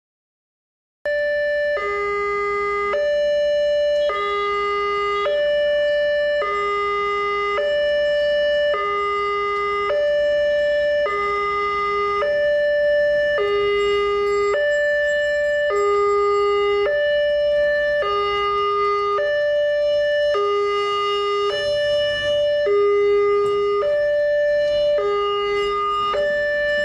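Railway level-crossing warning alarm sounding with the barrier down, signalling an approaching train: an electronic two-tone signal that alternates a higher and a lower tone, about one cycle every second and a quarter. It starts about a second in.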